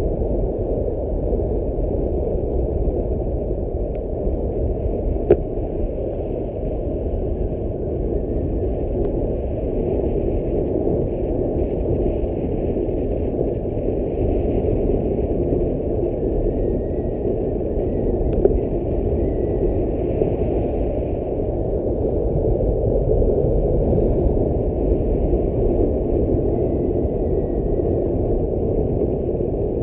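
Steady, dense rumble of a vehicle travelling along a road: engine and road noise mixed with moving air.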